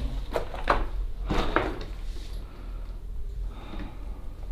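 Footsteps crunching and scuffing over a debris-covered floor in a small room, a few distinct steps in the first two seconds, then quieter.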